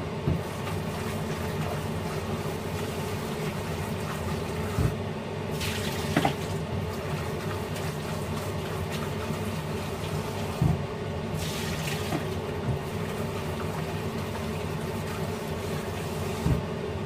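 Tap water running into a plastic bowl in a kitchen sink while raw vegetable leaves are rinsed by hand. A few short dull knocks sound over the steady flow, about five times.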